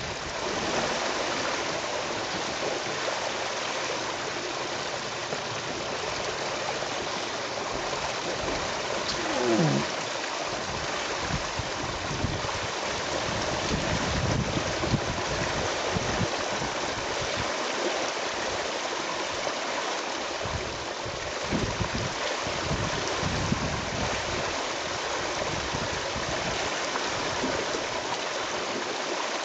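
Steady rushing wash of rain and river water, with scattered low thumps through the second half and one short low falling sound about nine and a half seconds in.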